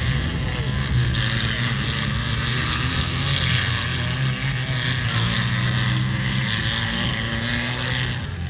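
Demolition derby cars' engines running in the arena, a steady, loud drone.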